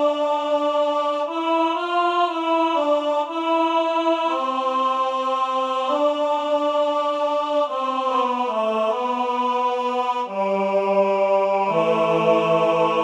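Music: a slow melody of long held notes with a voice-like, chant-like tone, stepping up and down in pitch, with a lower note joining near the end.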